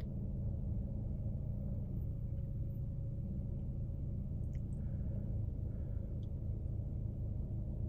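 A steady low hum with a few very faint ticks partway through.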